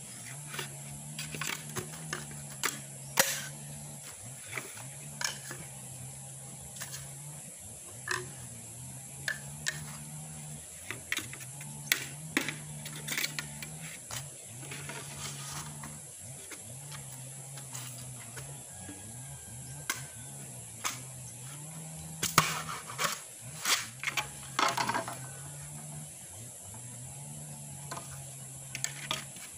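Old bolo knife (itak) chopping and splitting green bamboo poles: irregular sharp knocks and cracks, with a quick run of harder strikes about three quarters of the way through. A faint low hum that shifts in pitch every couple of seconds and a steady high hiss lie underneath.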